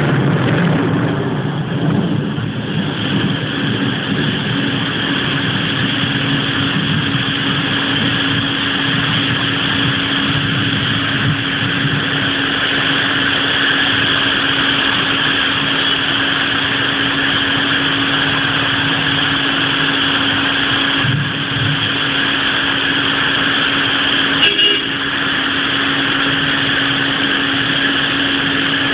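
Heavy rain falling in a steady, even hiss, with a steady low hum underneath and a brief sharp click about 25 seconds in.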